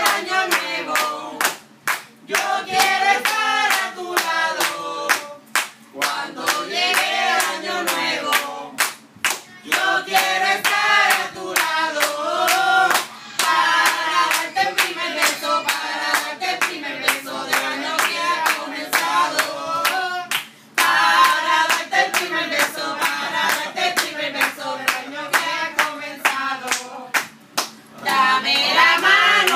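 A group of people singing a song together, with hand-clapping keeping a steady beat throughout.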